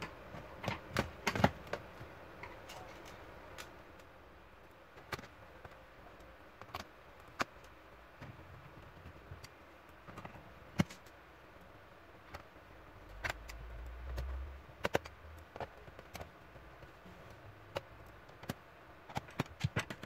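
Scattered sharp clicks and taps of hard plastic as a Toshiba Satellite C55 laptop's battery is pushed into its bay and the bottom case is worked with a screwdriver, with a cluster of clicks at the start and a brief low rumble past the middle.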